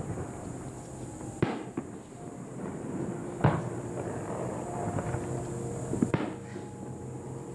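Aerial firework shells bursting: three loud booms about two seconds apart, with lighter pops and crackle between them.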